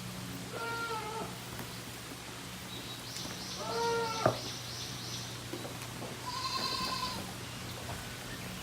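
Newborn Tokara goat kid bleating: three high, wavering calls a few seconds apart. A sharp knock comes just after the second call.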